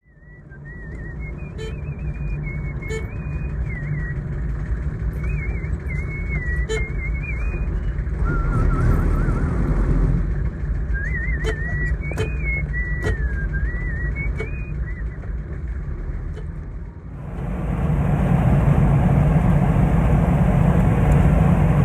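A man whistling a wavering melody over the steady rumble of a vehicle's engine and road noise, with a few sharp clicks. The whistling stops about three-quarters of the way through, and the road noise then grows louder.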